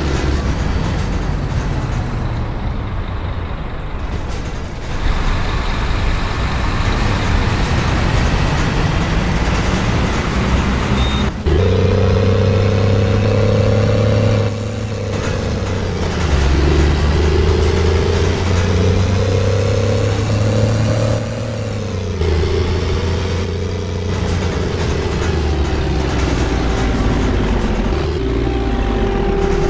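Bus diesel engine pulling away and accelerating, its pitch climbing and then dropping sharply at a gear change twice in the middle, then falling as it eases off near the end.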